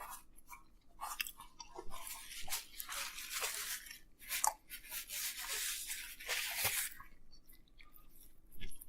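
A person biting into and chewing a pizza sandwich, with crunchy, crackling chewing from about a second in until about seven seconds, then a few softer mouth clicks.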